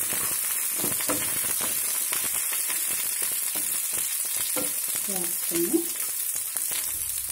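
Pieces of capsicum, garlic and shallots sizzling in hot oil in a nonstick frying pan, with a spatula stirring them and scraping and tapping on the pan.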